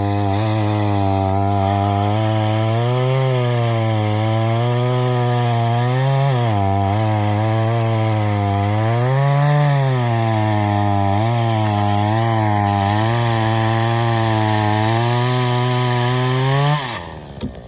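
Two-stroke Craftsman chainsaw with an 18-inch bar cutting into a felled silver maple, its engine pitch dipping and rising as the chain bites and frees. The engine stops abruptly near the end.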